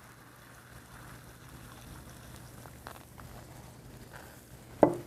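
Liquid nitrogen poured into bowls and boiling off: a faint steady hiss with a few light ticks. A brief, louder sound near the end.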